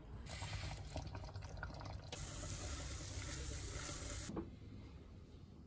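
Food sizzling in a frying pan while a cooking utensil clicks and scrapes against it. The sizzle becomes a steadier, brighter hiss about two seconds in and stops suddenly about four seconds in.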